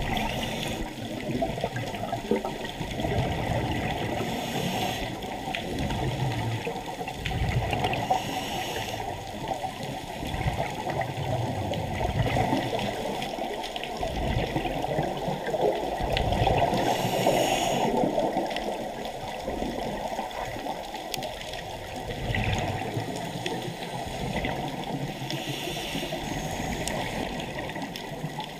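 Underwater sound of a scuba dive: a steady muffled rushing, with short hissing bursts from the diver's regulator breathing and exhaled bubbles every few seconds.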